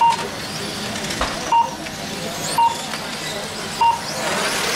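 Four short electronic beeps at uneven intervals, typical of a race lap-counting system registering cars crossing the line, over the steady whir of 1/8-scale brushless electric RC cars running; the cars' noise grows a little near the end.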